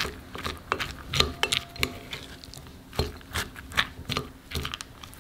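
Plastic rice paddle stirring cooked rice in a glass bowl: irregular taps and scrapes against the glass, two or three a second.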